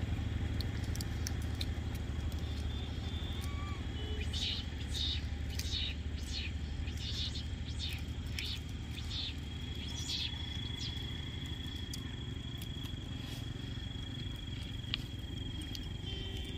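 Outdoor roadside ambience: a low engine rumble that fades away over the first few seconds, then a run of short high chirps, over a steady thin high tone.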